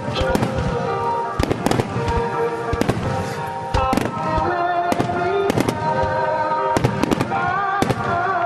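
Aerial fireworks shells bursting: a rapid series of sharp bangs, often in close pairs, about two a second, over music with held notes.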